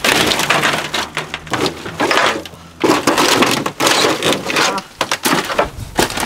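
Junk of old wooden boards and corrugated metal sheeting being pulled and shifted by hand, in a series of irregular clattering, scraping crashes.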